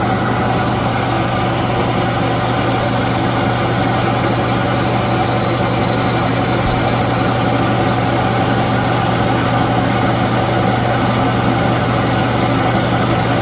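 A used 25-gallon air compressor running steadily on a test run, its motor and pump giving a loud, even drone with a strong low hum.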